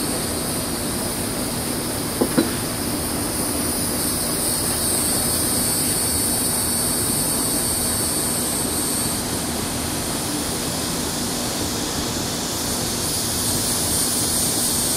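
Two short clinks of glassware being set down, about two seconds in, over a steady background of low hum and high hiss.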